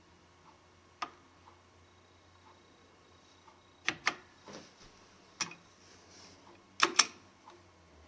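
Scattered sharp clicks and taps of hand-handled parts, including a close pair in the middle and a louder close pair near the end, over a faint steady hum.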